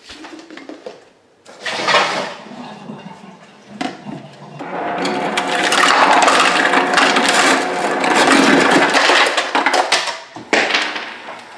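Refrigerator door dispenser running as it fills a plastic water bottle with ice water: a steady rush with a motor hum lasting about five seconds, after a shorter burst about two seconds in.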